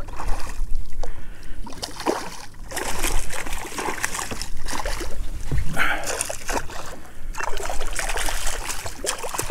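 Water splashing and trickling, with scattered knocks and handling noise, as a freshly caught redfish is landed and handled at the side of a kayak.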